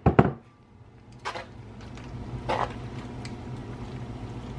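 Metal kitchen tongs tossing spaghetti in a frying pan: a couple of sharp clicks at the start, then faint taps and scrapes over a steady low hum.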